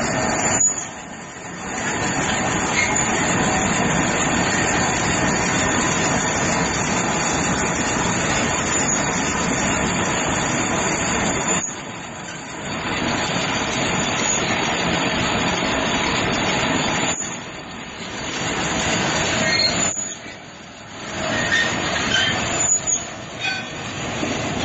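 Industrial stainless-steel date dicing machine and its feed conveyor running, cutting dates into small cubes: a steady, loud mechanical noise that drops away briefly a few times.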